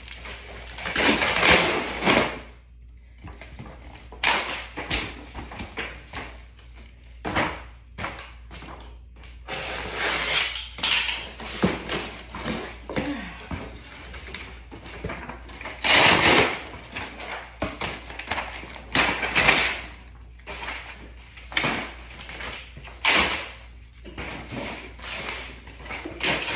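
A large cardboard furniture box being broken down by hand: a series of noisy rips and scrapes of cardboard, each about a second long, with knocks between them as the panels are torn and flattened.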